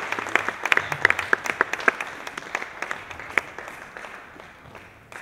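Audience applauding. The clapping is dense at first, then thins out and fades away over the last couple of seconds.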